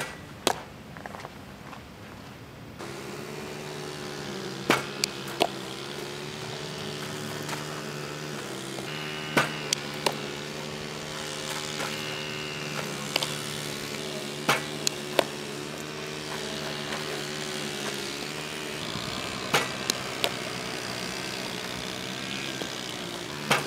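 A softball pops sharply into a catcher's mitt again and again, in small clusters about every five seconds. A steady engine hum runs underneath, starting about three seconds in.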